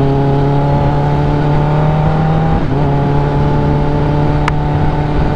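Motorcycle engine running at a steady cruise, its note rising slightly, with a brief break about two and a half seconds in, over low wind rumble.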